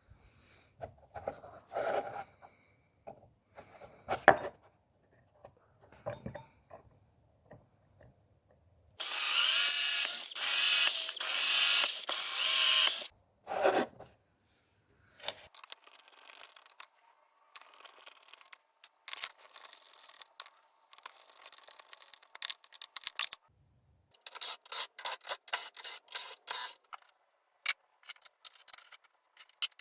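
Workshop assembly sounds: metal parts and tools clicking, knocking and rattling, with a power drill running steadily for about four seconds near the middle.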